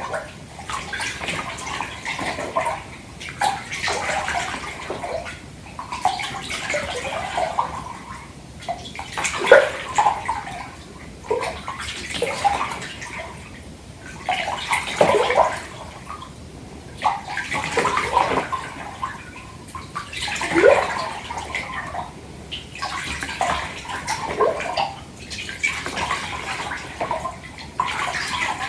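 Bath water sloshed by hands moving through a filled bathtub, in uneven swishing swells every second or two with bubbly gurgles. The biggest splash comes about ten seconds in.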